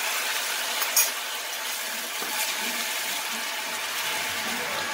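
Soy and oyster sauce mixture sizzling in a hot pan of stir-fried ginger, garlic, chili and spring onion: a steady hiss as the liquid hits the hot oil, with one light knock about a second in.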